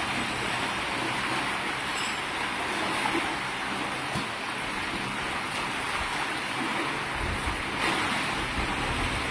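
A dense shoal of farmed fish in a pond splashing and churning at the surface as they feed on scattered feed: a steady, crowded splashing.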